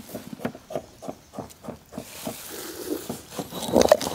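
Fresh coriander, mint and green chillies rustling as handfuls are scooped off a metal plate into a stone mortar, then a stone pestle starting to crush them, with a few sharp strokes near the end.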